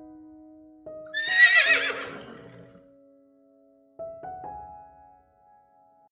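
Soft piano music with a horse whinnying about a second in, one quavering call that fades over about a second and a half.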